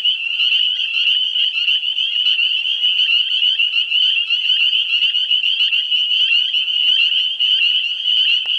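A dense spring breeding chorus of many frogs: a loud, unbroken wall of overlapping high, rising peeps.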